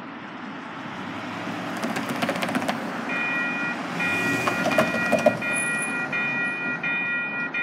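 Level-crossing warning bell that starts about three seconds in, an electronic ding repeated a little less than twice a second, over the rising rumble of an approaching C-Train light-rail train. A few sharp clicks come just before the bell starts.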